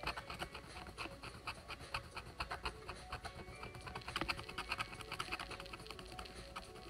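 Pointed wooden stylus scratching the black coating off scratch-art paper in quick, short strokes, several a second.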